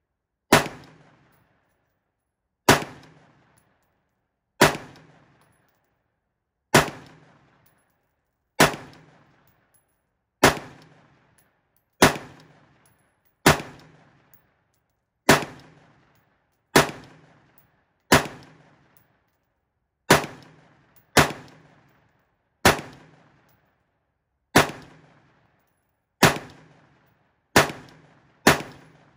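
LMT MRP 16-inch external-piston 5.56 mm rifle fired semi-automatically, about eighteen single unsuppressed shots at a steady pace of one every one and a half to two seconds, each crack ringing out briefly. The rifle keeps cycling without a stoppage.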